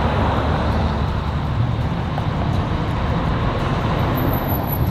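1957 Chevrolet Bel Air driving slowly past in street traffic, its engine running steadily under tyre and traffic noise. A thin high whine comes in near the end.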